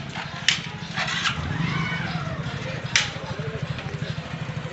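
Motorcycle engines running at low speed as bikes ride slowly past close by, a steady pulsing hum. Two sharp cracks stand out, about half a second and three seconds in.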